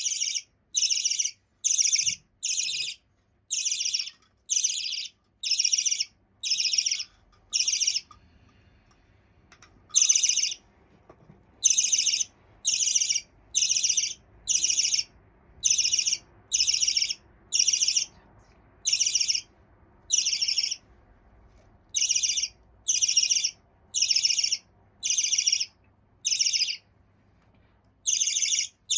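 Half-jumbo budgerigar chick calling: a high, harsh chirp repeated about once a second, the steady rhythm of a young budgie's begging calls, breaking off for a couple of seconds about a quarter of the way in.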